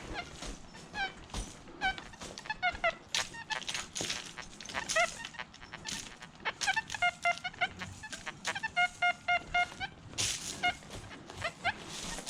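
Geese honking: many short, rising calls, with quick runs of evenly repeated honks in the middle.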